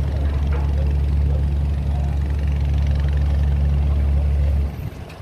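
A heavy engine running at a steady low idle, which cuts off abruptly near the end.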